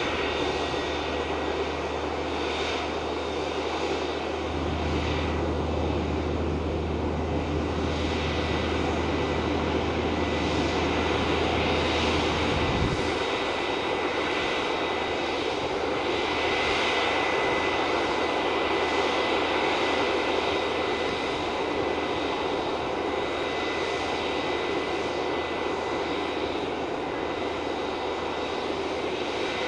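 Airbus A320neo airliner on the apron with its jet engines running at idle: a steady rushing noise with a high whine held throughout. A low hum underneath stops about 13 seconds in.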